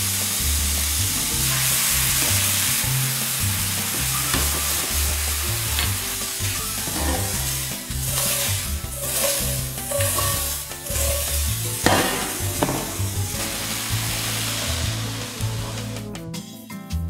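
Sliced shiitake mushrooms sizzling in a hot frying pan as they are stirred and tossed with a spatula, with several scraping strokes from about seven to thirteen seconds in. The sizzle stops near the end.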